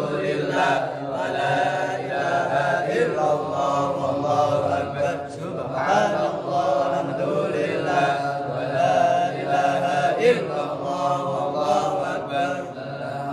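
A man reciting the Qur'an aloud in Arabic in a melodic chant, holding long drawn-out vowels that slide up and down in pitch, with brief pauses between phrases.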